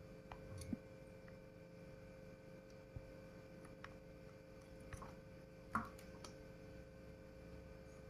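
A handful of small clicks and taps from a computer power-supply circuit board and its wires being handled while they are desoldered, the loudest about three-quarters of the way through, over a faint steady hum.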